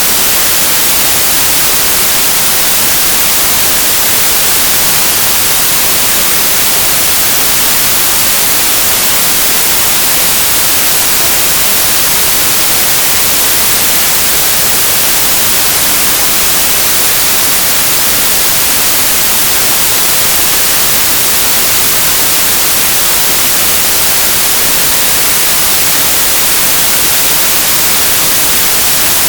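Loud, steady static hiss like white noise, strongest in the highs and unchanging throughout, with no other sound.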